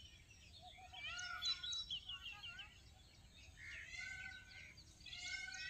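Birds chirping faintly in the background, a scatter of short chirps and calls.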